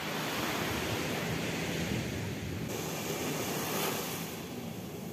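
Sea waves breaking and washing on a sandy beach: a steady rushing noise, with some wind on the microphone.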